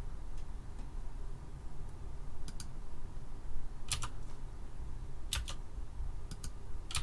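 Four or five isolated sharp clicks of computer keys or buttons, each a quick double click, a second or so apart and loudest in the middle of the stretch, over a low steady hum.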